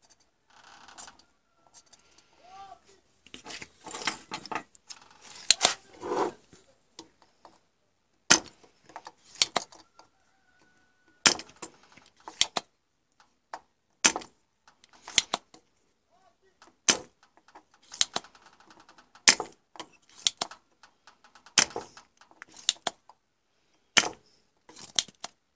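Spring-loaded desoldering pump (solder sucker) being cocked and fired again and again at solder joints: sharp clicks in pairs, about one pair every two and a half seconds, after several seconds of rustling handling noise.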